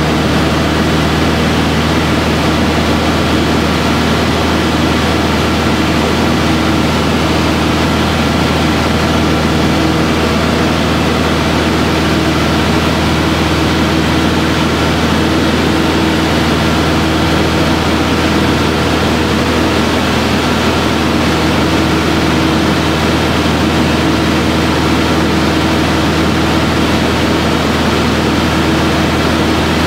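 Aero Boero AB-115 light aircraft's single piston engine and propeller running steadily in flight, heard from inside the cockpit as a loud, even drone with a steady low hum.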